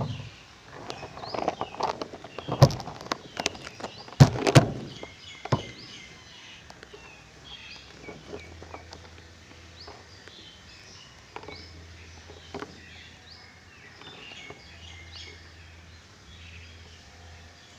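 Several sharp knocks and thumps in the first six seconds, with small birds chirping in short high calls throughout. A low steady hum comes in about eight seconds in.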